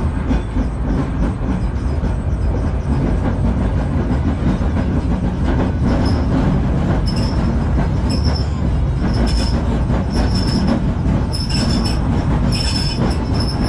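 Sydney O-class electric tram running along the track, heard from inside its wooden cab: a steady low rumble of wheels and motors. About halfway through, short high-pitched wheel squeals start and come roughly once a second.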